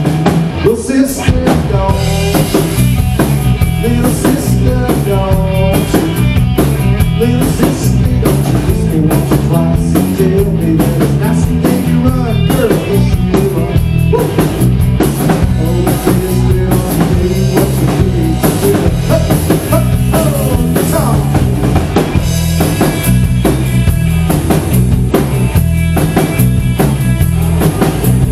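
Live rock band playing an instrumental break: an electric guitar lead with bending notes over electric bass and a steady drum kit beat.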